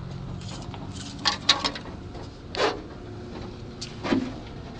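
Handling noises around the pickup's open engine bay: a quick run of three sharp clicks or taps, then a couple of brief rubs and knocks, over a low steady hum.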